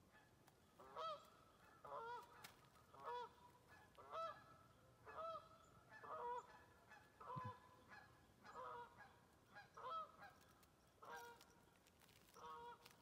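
Several geese honking, faint, with a call about once a second, some calls overlapping.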